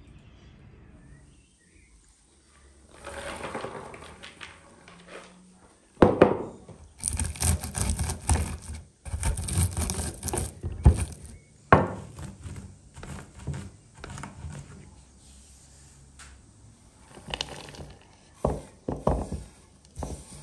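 Shelled walnut kernels crushed under a wooden rolling pin on a wooden cutting board: a run of crunches and wooden knocks, starting about three seconds in and densest in the middle. Near the end the crushed nuts slide off the board into a wooden bowl.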